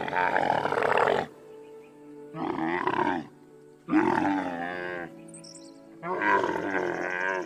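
A large animal calling again and again, four wavering calls of about a second each, over background music.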